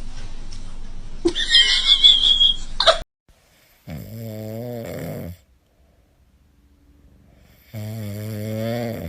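Two long, low snores about four seconds apart. Before them a louder noisy stretch with a shrill high sound cuts off suddenly about three seconds in.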